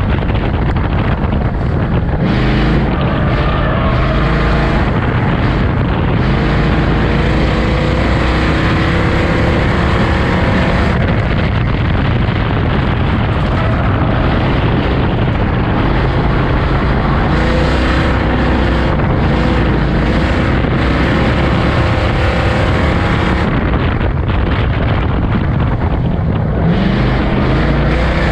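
Ford Outlaw figure-8 race car's engine heard from inside the cockpit, running hard at racing speed. Its pitch rises and falls repeatedly as the throttle is worked through the track, with wind noise on the microphone.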